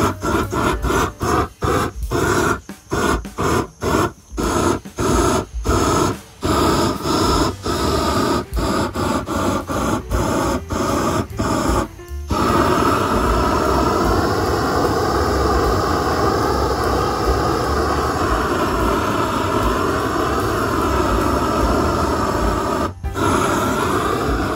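Hand-held propane torch burning steadily as it chars the textured wood surface of a carving, burning off the loose fibres left by texturing. For about the first half the sound comes in short chopped bursts with brief gaps, then it runs as one continuous, wavering rush.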